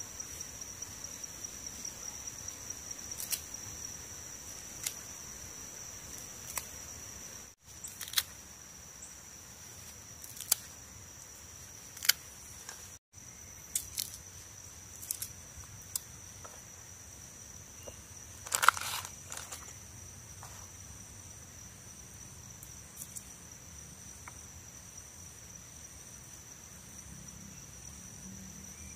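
A steady, high-pitched insect drone in the forest, overlaid by scattered sharp clicks and taps from close at hand, the loudest cluster about two-thirds of the way in. The sound cuts out for an instant twice.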